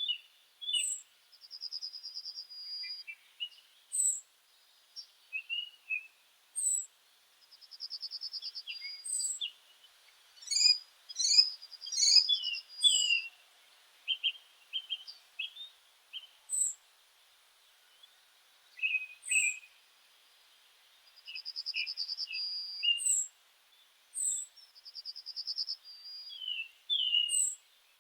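Several songbirds singing and calling together: a buzzy trill lasting about a second, repeated every few seconds, high thin down-slurred notes, and quick chirps, with a dense flurry of calls about ten to thirteen seconds in.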